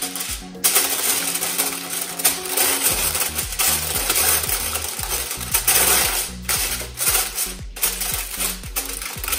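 Aluminium foil crinkling and rustling as it is pressed and folded over a round air fryer rack, starting about half a second in. Background music with a low bass line plays underneath.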